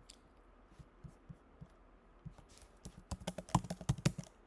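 Small sharp clicks and taps, typing-like: scattered at first, then a quick, dense run of them from about two and a half seconds in that stops shortly before the end.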